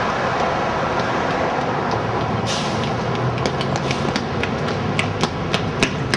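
Steady city street traffic noise with a low hum. From about halfway in, footsteps click on the concrete sidewalk about three times a second, growing louder as the walker comes closer.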